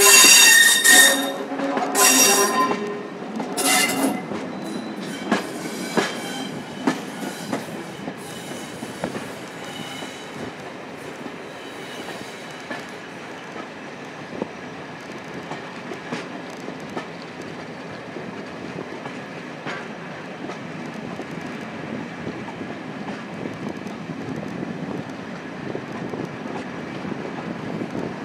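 Train wheels heard from an open coach window while the train rounds a curve: several loud shrill squeals in the first four seconds, fitting wheel flanges grinding on the curved rail. After that comes a steady running rumble with the click of wheels over rail joints.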